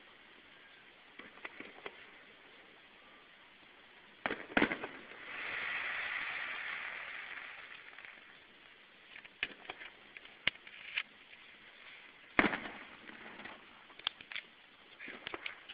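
Aerial fireworks shells bursting: sharp bangs about four seconds in, a swell of hiss rising and fading just after, a run of pops around ten seconds, and the loudest bang around twelve seconds, followed by scattered pops near the end.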